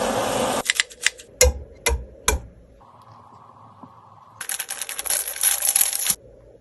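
Kitchen handling sounds while instant noodles are prepared. A short rush of noise gives way to several sharp clicks and three knocks. Then comes nearly two seconds of dense crackling that cuts off suddenly.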